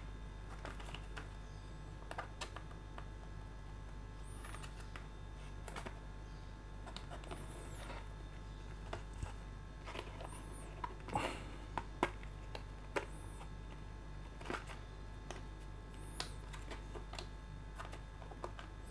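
Faint handling of plastic blister packaging: scattered clicks, taps and scrapes as a T-handle screwdriver is worked loose from its black plastic holder on a card backing, thickest around the middle, over a steady low mains hum.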